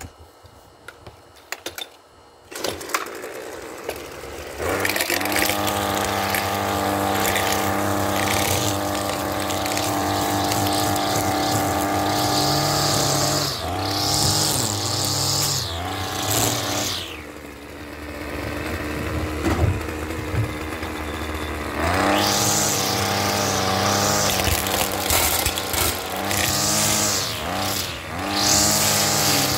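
A handheld string trimmer with a few clicks first, then its motor starting and running at high speed. The revs drop and pick up again several times as the throttle is eased while trimming grass.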